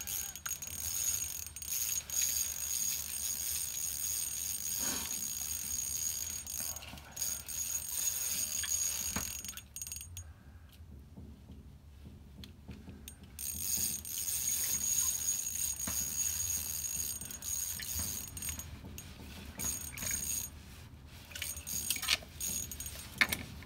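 Fishing reel clicking and whirring as line is worked while fighting a large northern pike, going quiet for about three seconds midway before starting up again.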